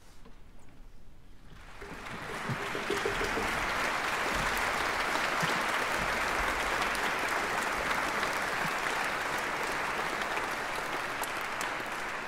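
Audience applauding: the clapping breaks out about one and a half seconds in, holds steady as a dense even clatter, and begins to fade near the end.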